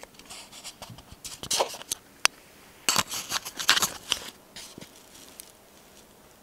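Handling noise close to the microphone: a run of small clicks, taps and rustles, with one sharp click about two seconds in, dying down after about four seconds.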